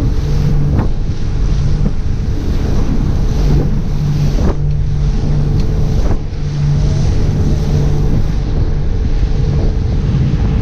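Motorboat cruising at speed: a steady engine drone under heavy wind buffeting on the microphone, with a few short thumps scattered through.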